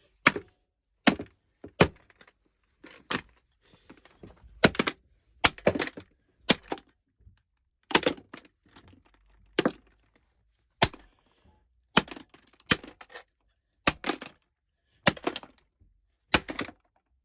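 Hammer blows on a cheap corded stick vacuum: a run of about sixteen hard, sharp strikes, roughly one a second and unevenly spaced, each with a short crack of the casing.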